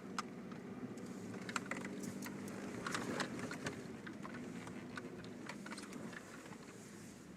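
A vehicle engine running steadily at slow speed on a snowy track, with irregular sharp clicks and crackles over it.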